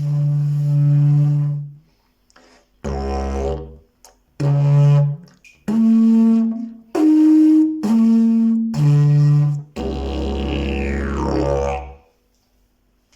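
Fiberglass triple-slide didgeridoo played as a run of short drone notes at several different pitches, each held about a second with brief breaks between them. It ends on a longer low drone whose overtones sweep downward, then stops about a second before the end.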